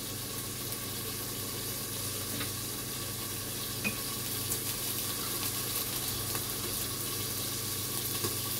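Chicken pieces with garlic frying in a covered pan: a steady sizzle with a few small pops.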